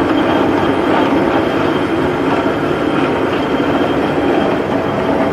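LeBlond 18" x 102" engine lathe running under power, its 10 hp motor, headstock gearing and lead screw driving the carriage feed. A steady mechanical running noise with a thin high whine above it.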